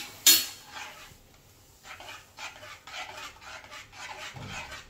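Steel spatula stirring a thickening milk-and-flour almond soup in a stainless steel pan: a sharp clank of metal on the pan just after the start, then an even run of scraping strokes, about three a second.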